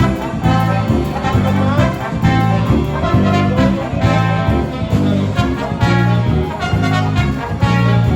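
Jazz-style music with brass and a steady bass beat.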